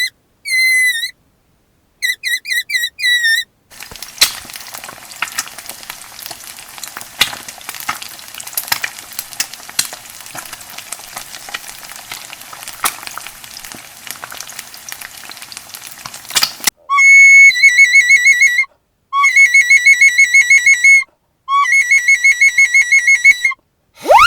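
A deflating balloon's neck squeals in short squeaks that rise and fall. Then food sizzles in a frying pan for about thirteen seconds, with scattered crackles. Near the end a flute plays three short phrases of quick, wavering notes.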